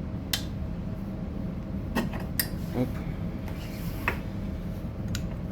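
Several sharp metallic clicks and clinks, about five, as the parts of a motorcycle's rear brake caliper are handled and fitted back together, over a steady low hum.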